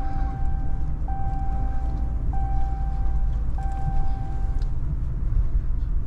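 Pickup truck driving slowly through deep snow, heard from inside the cab: a steady low rumble of engine and tyres. Over it, a flat, steady tone about a second long repeats four times and stops about three-quarters of the way in.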